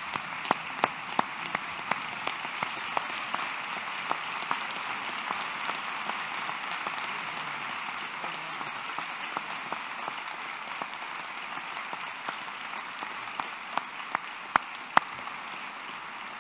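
Large audience applauding steadily, with a few louder individual claps standing out near the start and again near the end.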